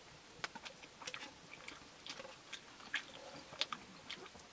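People eating rice by hand from metal plates: faint, irregular small clicks and scrapes of fingers and food against the plates, with chewing.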